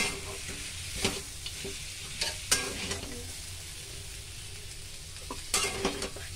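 Bitter gourd bhaji frying with a steady sizzle in a steel kadhai while a steel spatula stirs it, scraping and clinking against the pan several times, with a cluster of scrapes near the end.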